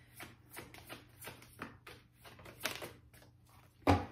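Tarot cards being shuffled in the hands: a quick, irregular patter of light card clicks, with a louder knock near the end as the deck is tapped on the table.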